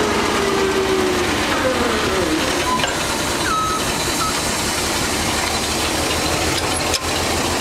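Hyster S150A forklift engine running steadily with a low, even rumble. A faint whine falls in pitch between about one and two and a half seconds in. There is a single sharp click about seven seconds in.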